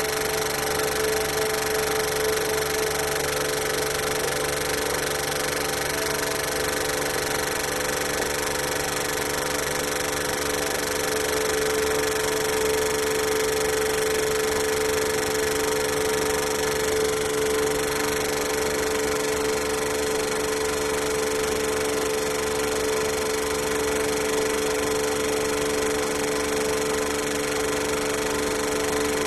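Vacuum pump running steadily with an even hum, evacuating a 150-litre mixing reactor vessel as its vacuum rises toward the set level.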